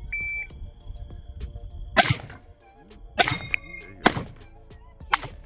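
A shot timer's start beep, one short high tone, then about two seconds later four AR-15 rifle shots roughly a second apart. Thin ringing follows some shots, the sound of steel targets being hit.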